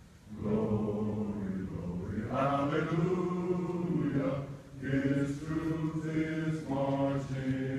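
Voices singing together in slow phrases of long-held notes, with a short pause about halfway through.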